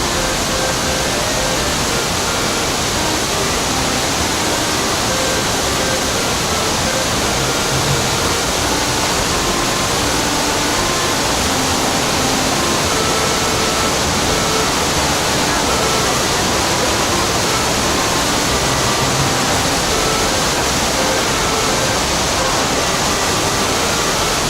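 Waterfall water pouring in a steady, unbroken rush: Fukiware Falls on the Katashina River.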